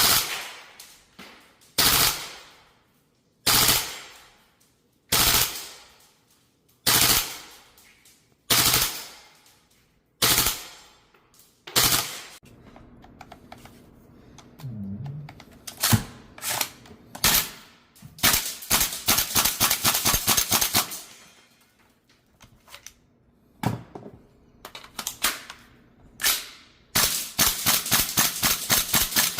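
VFC AR15 gas blowback airsoft rifle firing. It fires single sharp shots about every second and a half for the first twelve seconds, then a few scattered shots. Two rapid full-auto bursts follow, one about three seconds long in the middle and a shorter one near the end.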